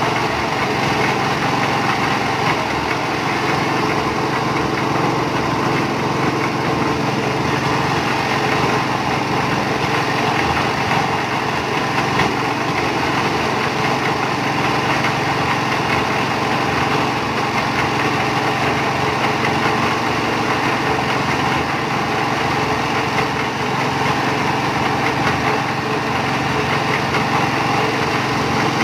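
Engine-driven concrete mixer running steadily with its 450–500-litre drum turning; the small engine runs at an even speed throughout.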